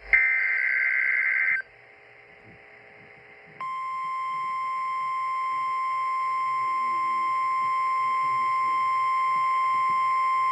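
Emergency Alert System broadcast: the end of a warbling digital SAME data burst, then a pause of about two seconds. After that, the steady single-pitch alert tone starts about three and a half seconds in and holds unbroken, signalling that a weather warning message follows.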